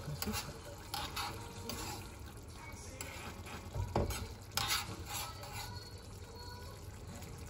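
Metal spoon stirring sardines in sauce in a frying pan, scraping and clinking against the pan at irregular moments, over a steady low hum.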